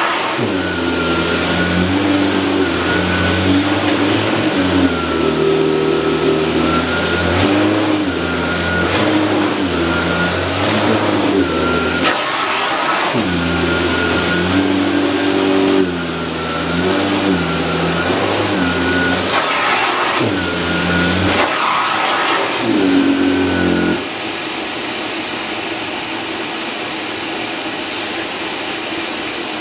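Electrolux UltraFlex bagless canister vacuum cleaner, fitted with a Miele powerhead, running while cleaning up heaped dust and rice. The motor's pitch rises and falls over and over, then settles to a steadier tone about 24 seconds in.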